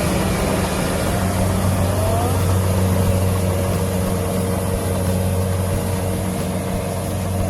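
Rice harvester's engine running steadily with an even low hum over a wide mechanical noise.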